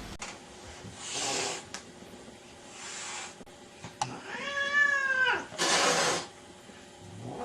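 A domestic cat hissing three short times, with one long, arching meow about four seconds in.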